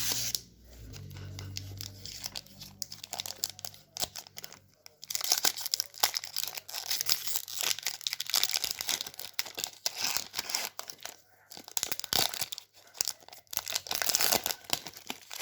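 Foil Pokémon booster pack wrapper being torn open and crinkled in the hands, with dense crackling in two long spells.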